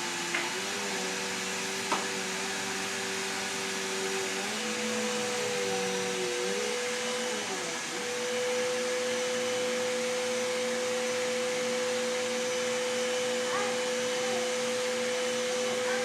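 Vacuum cleaner motor running steadily. About a third of the way in, its pitch wavers and dips, then settles on a higher, steady hum for the rest. Two short clicks come near the start.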